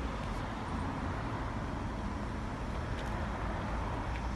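Class 158 diesel multiple unit running, a steady low engine noise with a hiss over it.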